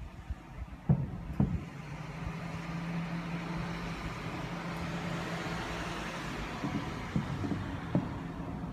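A road vehicle passing by, its noise swelling to a peak and fading, with a steady low engine hum, and a few short dull thumps near the start and near the end.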